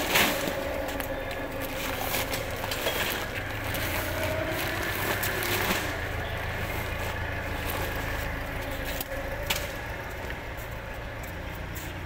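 Steady low mechanical rumble of warehouse machinery, with scattered knocks and scrapes, the sharpest near the start.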